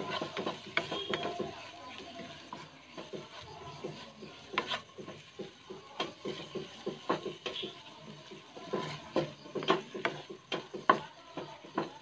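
Wooden spatula stirring and scraping a thick onion-tomato masala around a nonstick wok. It comes in quick bursts of short scrapes and knocks against the pan, and the sharpest knock falls near the end.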